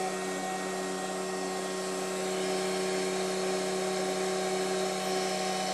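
FlashForge Creator Pro 3D printer humming steadily while it heats its extruders and build platform before printing.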